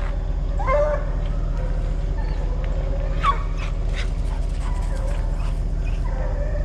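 Bear hounds baying: a few drawn-out, pitched bawls with sharper yips between them, over a steady low hum.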